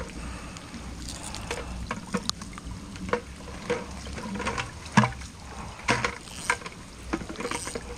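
Irregular sharp clicks and light knocks, the loudest about five and six seconds in, over a low steady rumble.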